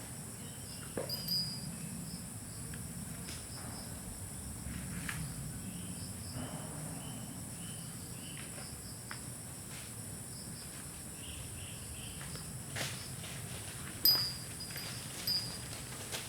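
Rural tropical ambience: a steady high-pitched insect drone with short repeated chirps, over a low background hum. Scattered light clicks and knocks, like footsteps, break through, the loudest a sharp knock about fourteen seconds in.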